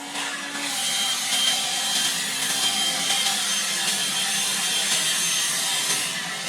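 Battery-powered leaf blower running steadily: a loud rush of air with faint steady high motor tones.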